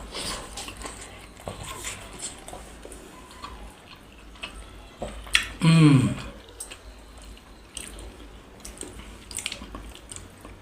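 Eating sounds at a meal of momos: chewing and mouth sounds with small scattered clicks of dishes or utensils. A short falling vocal sound comes about six seconds in.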